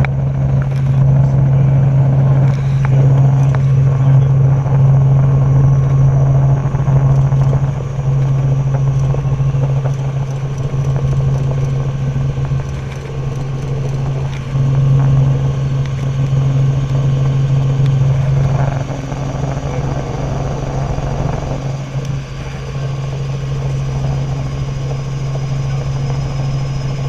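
Robinson R44 helicopter in flight: the steady drone of its rotors and six-cylinder piston engine, a constant low hum that swells and eases slightly.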